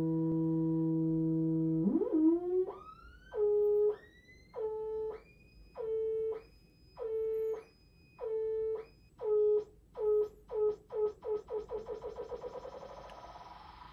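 Noise Toaster DIY analog synthesizer: a steady buzzy drone for about two seconds, then pulsed tones that each swoop up in pitch as they start. The LFO is driving the oscillator's frequency, and as its rate is turned up the pulses repeat faster and faster until they blur into a rapid warble that fades near the end.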